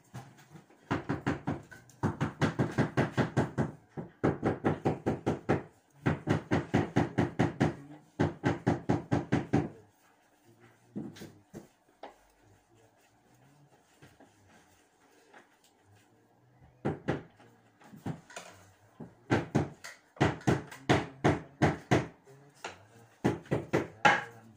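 Quick back-and-forth rubbing strokes of a hand tool against a wall, about six a second, in runs of one to two seconds with short breaks and a longer lull in the middle.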